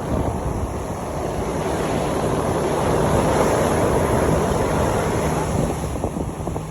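Water rushing against a moving boat with wind buffeting the microphone, swelling about three seconds in; a low steady hum from the boat joins about halfway through.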